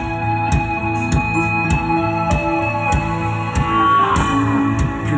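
Live rock band playing the instrumental intro of a song: electric guitar and held chords over a steady drum beat, with a bent guitar note about four seconds in.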